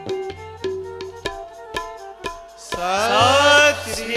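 Tabla playing a steady rhythm of about three strokes a second: ringing treble-drum strokes over the low, humming bass drum. About three seconds in, a loud voice comes in on a long note that rises in pitch.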